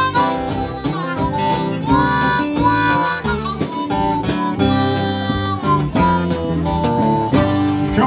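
Band playing an instrumental intro in the key of G: a harmonica leads, with bending notes, over strummed acoustic and electric guitars and a drum kit.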